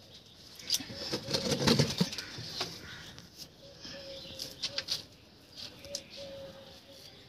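Dry coconut coir fibre rustling and crackling as hands press pieces into a wire-mesh frame and pull clumps apart. It is densest in the first two seconds, with scattered crackles after.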